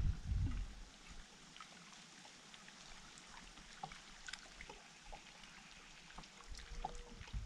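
Faint water trickling and lapping, with scattered light ticks. A low rumble fades out about a second in.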